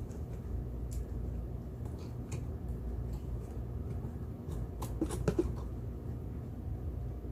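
Light clicks and taps of small objects being handled, with a short cluster of louder clicks about five seconds in, over a steady low hum.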